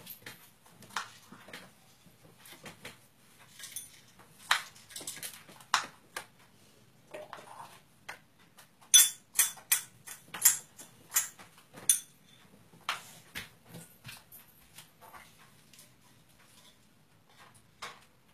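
Light clinks and knocks of plates and utensils being handled by small children, scattered through, with a quick run of sharper clinks about nine to twelve seconds in.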